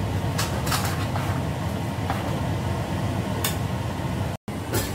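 Metal spatula scraping and clicking against a stainless steel pan while stir-frying rice vermicelli, a handful of separate strokes over a steady low hum. The sound cuts out for an instant near the end.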